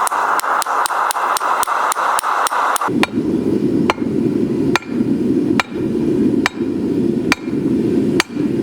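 Hand hammer blows on hot steel at the anvil: quick strikes, about four or five a second, for the first three seconds, then slower, heavier-spaced blows a little under a second apart, all over a steady rushing noise.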